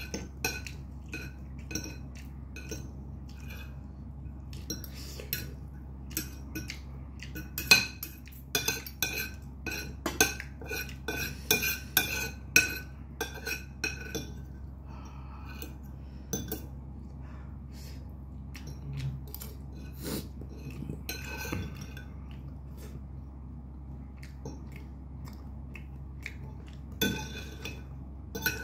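Metal spoon and fork clinking and scraping against a ceramic plate in irregular bursts. The clinks are busiest in the middle and again near the end.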